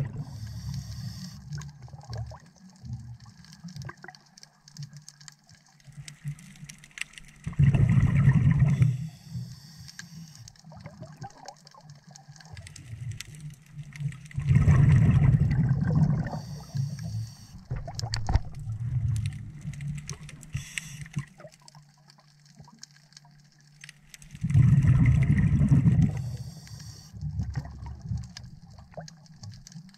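A scuba diver breathing through a regulator, heard underwater: three loud burbling rushes of exhaled bubbles, about eight, fifteen and twenty-five seconds in, each about two seconds long. A short high hiss follows each breath, and a quiet low rumble lies between them.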